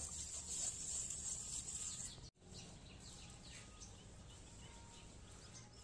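Outdoor ambience: a steady high-pitched insect buzz for the first two seconds, cut off suddenly, followed by fainter background with scattered bird chirps.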